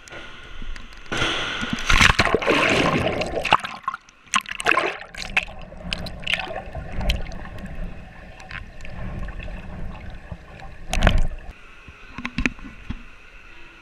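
A person jumping off a diving board into a deep pool: a loud rush of splashing water about a second in as they hit the water, then muffled water noise heard from below the surface, and a second short burst of splashing near the end as they break back through the surface.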